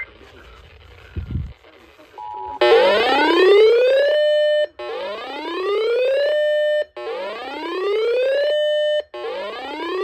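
Electronic alert tone of an emergency alert broadcast: a brief steady two-note tone, then a repeating whoop of rising sweeps, each about two seconds long. Each sweep climbs, holds a steady pitch, then cuts off. A low thump comes about a second in.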